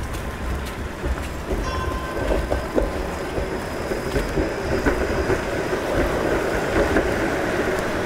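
Toronto Flexity streetcar running along its rails past the bridge sidewalk: a steady rumble with a faint high motor whine, growing louder toward the end. Wind buffets the microphone throughout.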